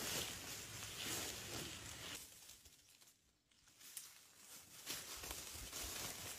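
Rustling and crackling in dry leaf litter, with many small clicks. It fades almost to nothing about halfway through and returns about five seconds in.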